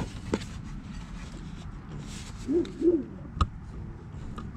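Two short hooting calls, each rising then falling, about two and a half seconds in, over light clicks and knocks of hands fitting a small carburetor into an ATV's engine bay.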